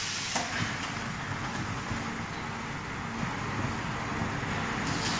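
Gas-fired rotary drum tea roaster running with a steady hum and rushing noise while it empties roasted green tea leaves.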